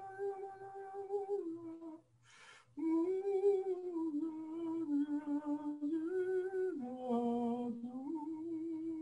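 A man's voice toning in long, held hummed notes that step down and back up in pitch with a slight waver, as part of a guided sound meditation. There is a quick breath in about two seconds in.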